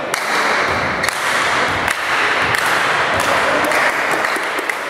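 Volleyball being hit during a rally, sharp slaps and thuds of the ball echoing in a large sports hall over a steady rush of hall noise.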